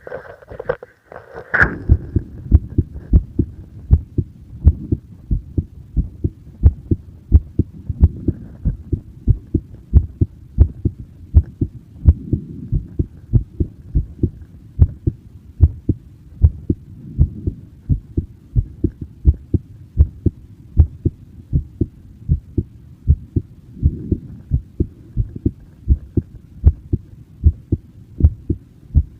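A person's heartbeat, recorded close to the chest: steady, rhythmic low thumps in repeating beats over a low muffled rumble. The beats start about two seconds in, after a brief noise and a click.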